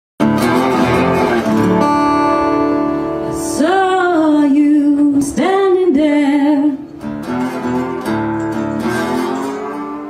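A band plays live: strummed acoustic guitar under a lead melody. In the middle come two long phrases that bend up and then slide down in pitch, with vibrato.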